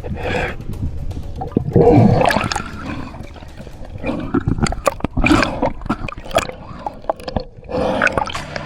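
Water splashing and sloshing in irregular surges, with sharp clicks and knocks among them.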